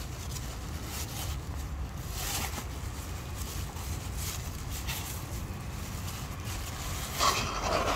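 Cats chewing dry kibble, a few faint crunching clicks, over a steady low rumble. A louder brief noise comes near the end.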